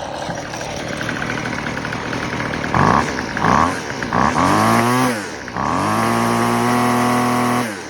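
Weed Eater FeatherLight FL26 string trimmer's small two-stroke engine running on its newly fitted carburetor. It idles steadily, then the throttle is blipped three times, revved up and back down, and held at high revs for about two seconds before dropping back. After the idle-screw adjustment it now holds idle and takes throttle cleanly.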